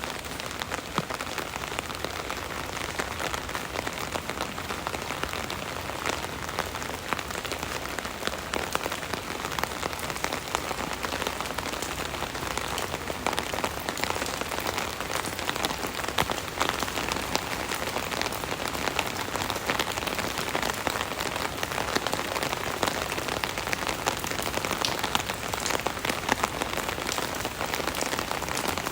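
Steady rain pattering on an umbrella overhead, a dense patter of drops with no let-up.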